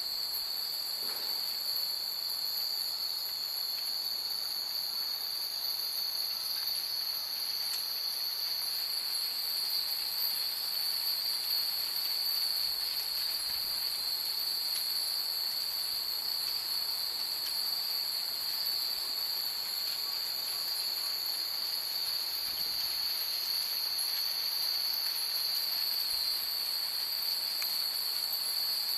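Steady high-pitched chorus of night insects, unbroken throughout, with a few faint tinkles from hanging wind chimes now and then.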